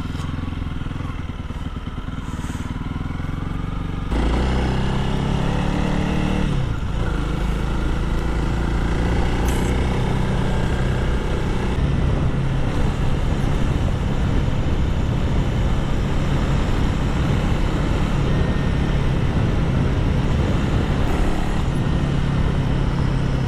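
Honda CRF300L's single-cylinder engine running as the bike rides along, over a steady rush of wind and tyre noise. About four seconds in it gets louder, and a little later the engine pitch briefly drops and rises again.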